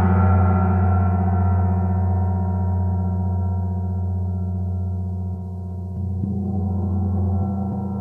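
A 26-inch vintage Zildjian Turkish tam-tam rings on after felt-mallet strokes, with a deep hum and many overtones. Its higher overtones die away, and a soft stroke about six seconds in swells the sound again.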